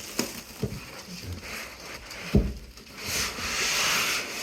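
Handling noise as a heavy heat press is worked out of its packaging: a few light knocks, a louder thump about two and a half seconds in, then a scraping, rustling rub near the end.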